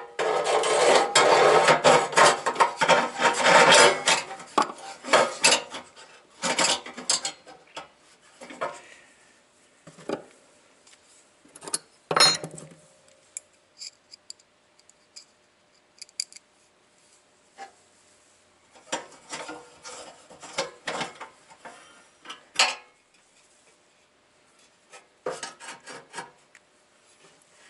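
Metal scraping and rubbing as the replacement igniter is worked into the Suburban SF-30 furnace's sheet-metal burner opening, heaviest over the first four seconds or so. Then scattered clicks and short scrapes of hand work on the metal parts with a screwdriver, with one sharp click about twelve seconds in.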